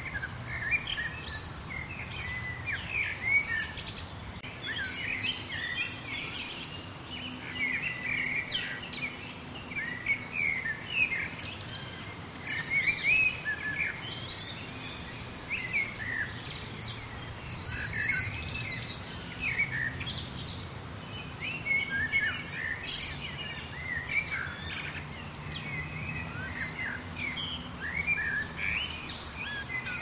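Small songbirds chirping and twittering, many short, quick calls overlapping without pause, with a high, rapid trill about halfway through and again near the end.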